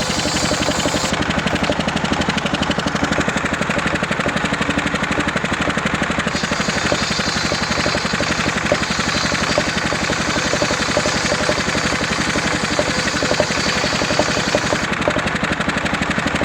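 Engine of a homemade circular saw rig running steadily with a fast, even beat.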